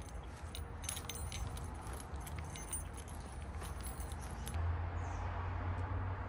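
Light jingling and ticking over a low steady hum. The jingling stops about four and a half seconds in, and the hum grows louder from there.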